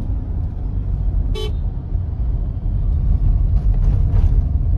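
Road noise inside a moving car, a steady low rumble. A single short vehicle horn toot sounds about a second and a half in.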